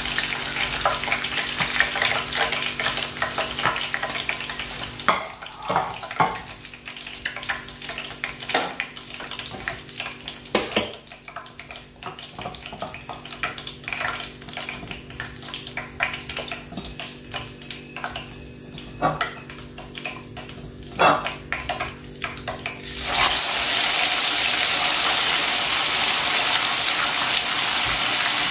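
Hot oil sizzling as a fried tilapia is lifted out of the pan, then a quieter stretch of scattered clicks and knocks over a steady low hum. About 23 seconds in, a raw seasoned tilapia goes into the hot oil and a loud, steady sizzle of deep-frying begins abruptly.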